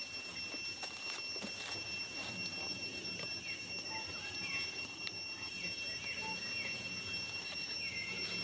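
Forest ambience: a steady, high-pitched insect drone, with short chirping calls scattered through the second half and a few faint clicks.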